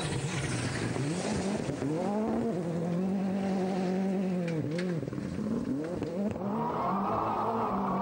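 Ford Fiesta R5 rally car's turbocharged four-cylinder engine driven hard past on a gravel stage, its revs rising and falling with short dips at the gear changes. Near the end the sound switches to a steadier engine note heard from on board the car.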